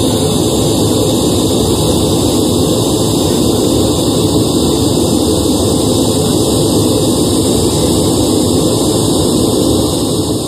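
A steady, loud rush of test noise played through a large sound-system speaker rig during a phase and polarity check. It fades out near the end.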